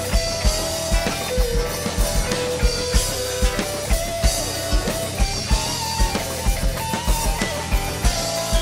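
Live band music: an electric guitar solo of long held notes that bend and slide in pitch, over a steady kick-drum beat of about three hits a second.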